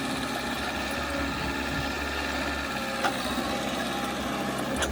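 Engine of a heavy earthmoving machine running steadily at a low, even speed, with a short click about three seconds in and another near the end.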